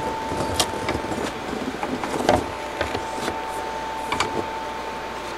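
Clicks and knocks of a wire filter shaker bar being set into a vacuum's filter and drum, about five in all, the loudest about two seconds in. A steady high hum sounds underneath.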